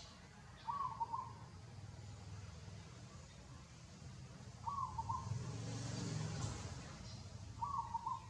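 A bird calling three times, a short two-part call repeated about every three seconds, over a low background rumble.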